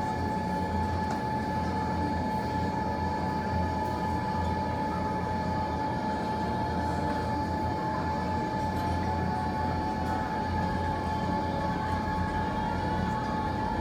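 Steady mechanical hum: a constant high-pitched tone over a low rumble, with no crackling.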